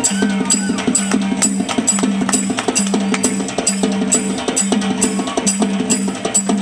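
Drum music with a fast, steady beat and a repeating low drum note.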